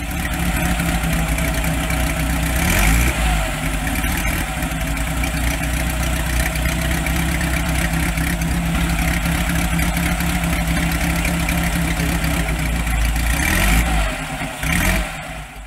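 Vintage four-cylinder motorcycle engine idling steadily, blipped up briefly twice, about three seconds in and again near the end.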